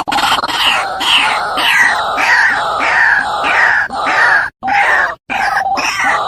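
White-breasted waterhen (ruak-ruak) calling: harsh, croaking notes repeated about every half-second. From about four seconds in they come in shorter bursts, broken by sudden silent gaps. This is a lure-call recording used to attract the bird.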